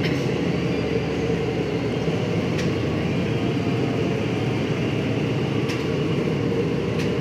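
1992 Chevy S-10 pickup running on a chassis dyno at a steady speed: engine, drivetrain and rear tyres on the roller make a steady, even running noise with no rise in pitch.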